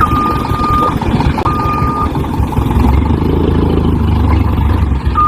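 Truck engine sound running steadily with a low rumble, with a high electronic beep sounding twice near the start and once more at the end.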